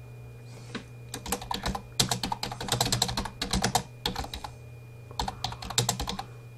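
Typing on a computer keyboard: two quick runs of keystrokes with a pause of about a second between them, over a steady low electrical hum.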